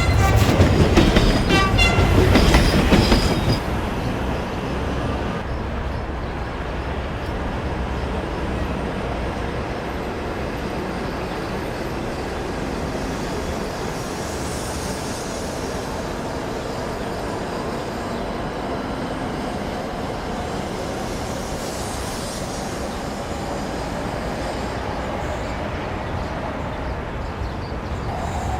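A train rolling along the track. A loud, high tonal sound, like a horn or wheel squeal, comes in the first three seconds, then gives way to a steady rumble of railroad cars passing.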